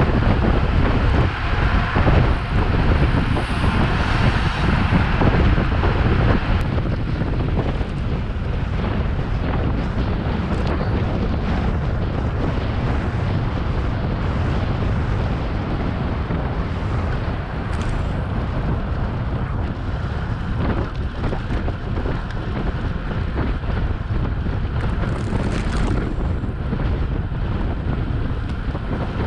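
Wind buffeting the microphone of a bike-mounted camera on a road bike riding at race speed: a loud, steady rush heaviest in the low end, a little stronger for the first six seconds or so.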